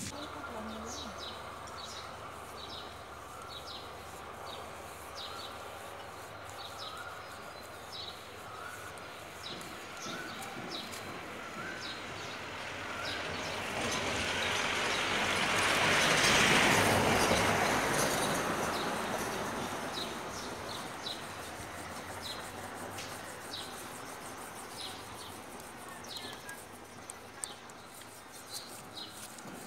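Birds chirping in short, high, repeated calls, roughly one a second. A broad rushing noise swells to its loudest about halfway through and fades away over several seconds.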